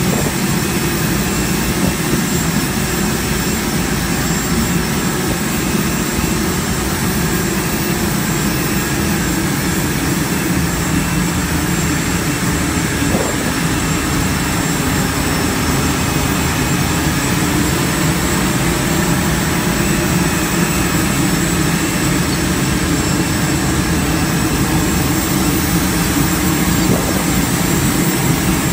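Steady aircraft turbine engine noise with a faint high whine, running without a break.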